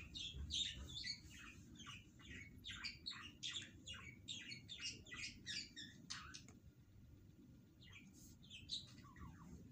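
Small birds chirping in quick runs of short falling notes, dense for the first six seconds and sparse after that, over a faint low background hum.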